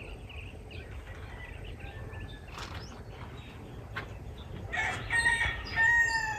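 A rooster crowing once near the end, one long call that falls slightly at its close, over faint chirps of small birds.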